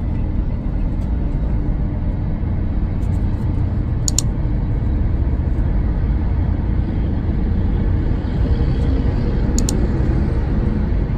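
Road noise heard from inside a moving car: a steady low rumble of tyres and engine at speed. Two short, high clicks come about four seconds in and again near the end.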